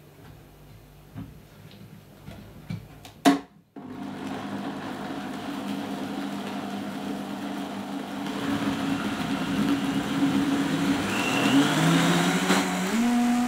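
A few light clicks as the lid goes onto a high-powered blender jug, one sharp click, then the blender runs, blending whole sesame seeds, water and dates into milk: a steady whir that grows louder and rises in pitch near the end.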